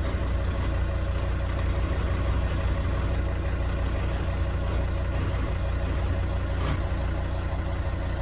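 Volvo XC90 running with a steady low rumble of engine and road, with one brief faint sound near the end.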